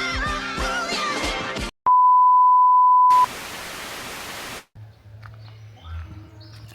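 Music cuts off, and after a brief gap a loud, steady test-tone beep sounds for just over a second. A burst of static hiss follows, then quiet outdoor ambience with a low hum.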